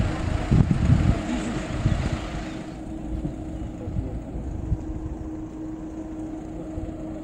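Road traffic: a car drives past on the asphalt, its tyre rush dying away about three seconds in, with wind buffeting the microphone; a low steady engine hum carries on after.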